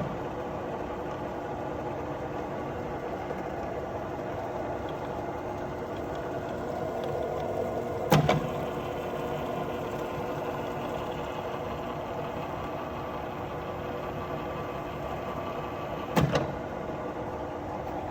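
Alzmetall AB35S drill press running through its automatic reverse tapping cycle: a steady motor and gearbox hum, broken twice, about eight seconds apart, by a sharp clunk as the spindle changes direction.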